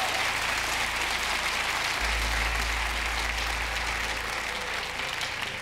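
Studio audience applauding steadily, the clapping slowly dying down toward the end.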